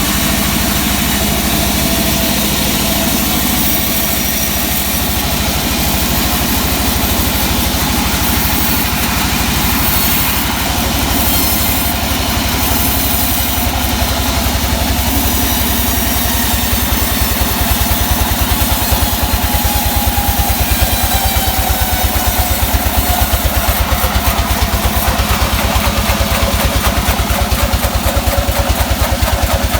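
Sawmill engine running steadily with a fast, even pulse that gets stronger and slightly louder a little past halfway.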